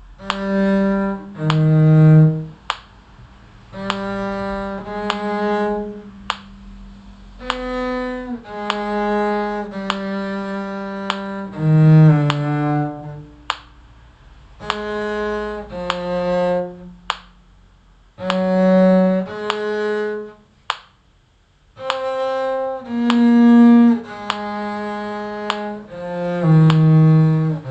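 Bowed string instrument played con sordino (with a mute), a slow tune in separate held notes with short gaps between them.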